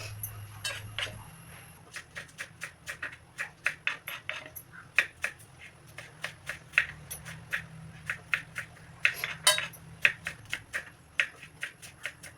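Kitchen utensils clinking and tapping against cookware, in many short, irregular strikes of about two to four a second.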